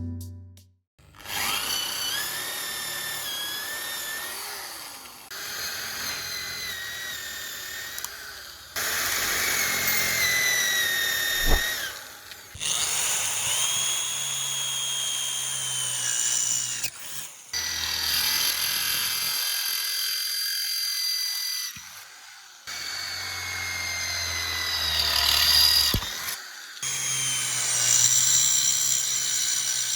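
Electric drill running in a series of short edited clips, its motor whine sagging and rising in pitch as it works, with sudden cuts between clips.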